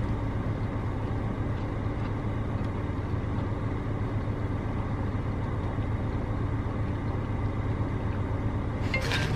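Steady low hum of a car's idling engine, heard from inside the cabin.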